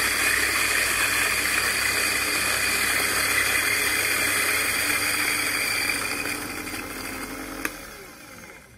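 Electric coffee burr grinder running steadily, grinding beans coarse for a Vietnam drip. After about six seconds it winds down and fades out, with a single click near the end.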